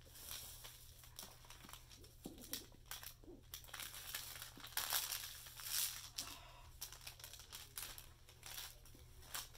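Clear plastic protective film over a diamond painting canvas crinkling and rustling in irregular bursts as hands and a cloth smooth it flat, loudest about halfway through.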